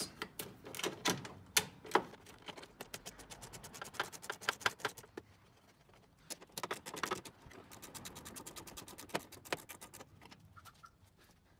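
A 10 mm socket ratchet clicking rapidly in runs as it backs out bolts. It pauses about halfway through, then gives a few shorter runs of clicks.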